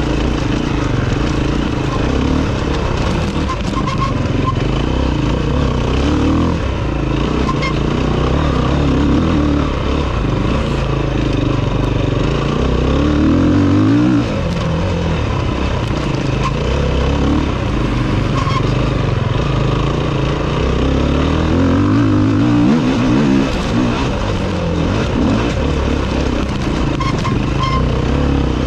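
Enduro dirt bike engine heard from onboard, running hard under load, its revs rising and falling continually with throttle and gear changes, briefly dropping off about halfway through.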